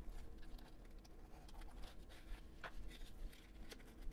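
Faint handling of a cardboard fountain-pen box: the end flap opened and the inner tray slid out, with a few light clicks and scrapes.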